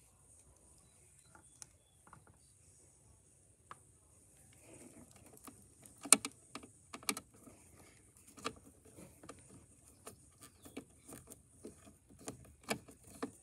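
Hand screwdriver working the mounting screws of a Predator 3500 inverter generator's ignition control module: a string of small, sharp metal clicks and ticks at uneven spacing. They start about five seconds in, after a quiet opening.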